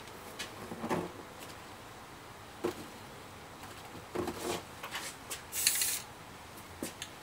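A crumpled wad dabbed and pressed onto a spray-painted poster surface and handled, giving a few scattered soft knocks and rustles, with a short hiss of about half a second just past halfway.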